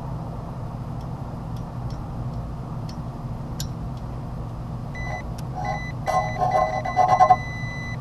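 Multimeter continuity beeper: a steady high beep that keeps cutting in and out from about five seconds in as the probe scrapes on oxidized copper tubing, with a louder rough sound under the beeps around six to seven seconds in. The beep shows continuity from a compressor terminal to ground, the sign of a grounded compressor motor winding.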